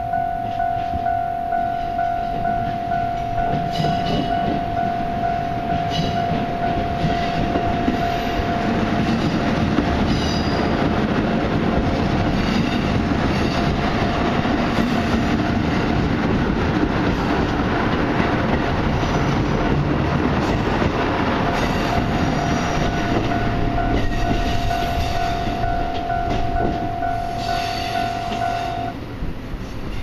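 Japanese level-crossing alarm ringing in a steady, rapid pulse while a JR Wide View Nanki diesel limited express (KiHa 85 series railcars) runs past, its engines rumbling and wheels clacking over the rail joints. The alarm stops near the end as the train clears the crossing.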